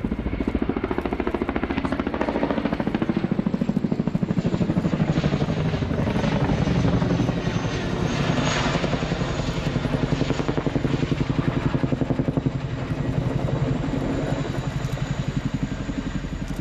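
Boeing Chinook HC2 tandem-rotor helicopter flying overhead: a rapid, even beat from its two three-bladed rotors. The beat grows louder a few seconds in as the helicopter comes closer.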